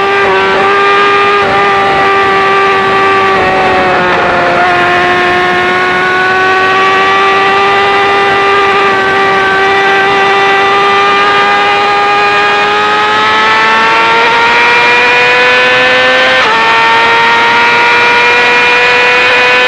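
2018 Yamaha R6 inline-four with an Akrapovic full-system exhaust running at very high revs under hard acceleration. Its high, steady note climbs slowly, dips about four seconds in, and drops sharply about three-quarters of the way through as the gearbox shifts up, then climbs again.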